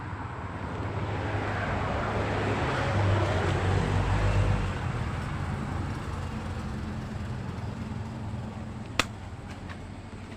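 A motor vehicle passing by: engine hum and road noise swelling to a peak about four seconds in, then fading away. A single sharp click near the end.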